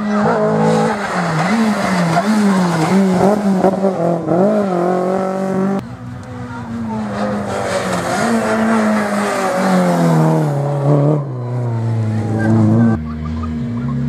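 Rally car engines revving hard, the pitch swinging up and down with throttle and gear changes. The sound breaks off suddenly about six seconds in and picks up again. It falls in a long sweep, then settles into a steadier, lower drone near the end.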